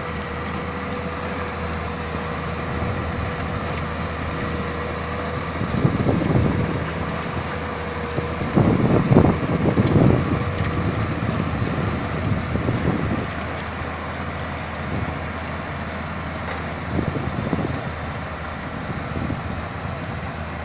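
Excavator's engine running steadily with a constant hum, with several louder rough surges, the loudest about nine to ten seconds in.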